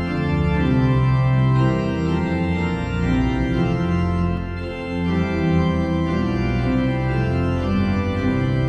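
Organ playing held chords over a sustained bass line, the notes changing every second or so.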